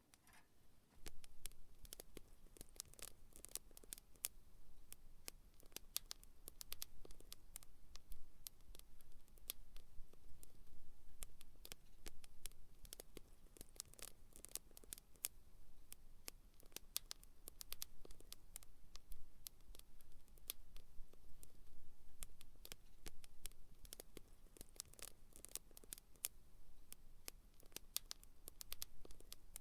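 Small wood campfire crackling: a dense, irregular stream of sharp pops and snaps that starts abruptly about a second in.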